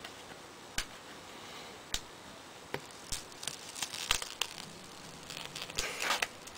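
Adhesive vinyl skin being handled and peeled from its backing sheet: crinkling and light tearing noises, mixed with scattered sharp clicks and taps, with the busiest crinkling in the second half.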